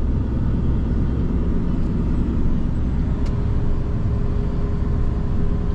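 Steady engine and road rumble heard from inside the cabin of a moving tour vehicle, with a faint steady hum over it.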